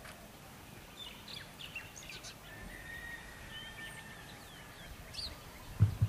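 Wild birds chirping, with short rising and falling calls and one longer level whistle, over a steady outdoor background hiss. A low thump just before the end.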